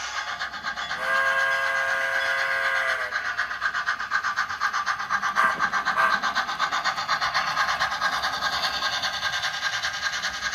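Sound-equipped model steam locomotive: a steam whistle is blown for about two seconds, starting about a second in. After that comes a steady, rapid rhythmic chuffing as the locomotive runs past pulling tank cars.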